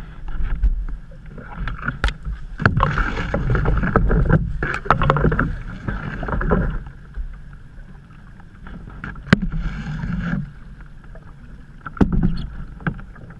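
Canoe paddles dipping and pulling through creek water, splashing in several spells of strokes, with a few sharp knocks of a paddle against the canoe.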